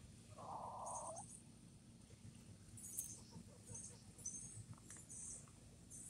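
Backyard hen giving one short, low call near the start, faintly heard. Several short high chirps from small birds come and go through it.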